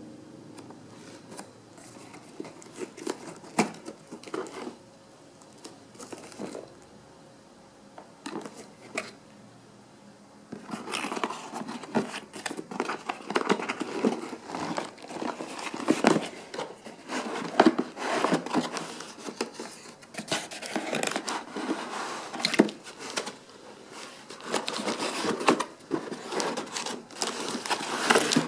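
Cardboard box and plastic packaging being handled as a router is unboxed: scattered light taps and scrapes, then from about ten seconds in continuous rustling and crinkling as the box is slid out of its sleeve and opened.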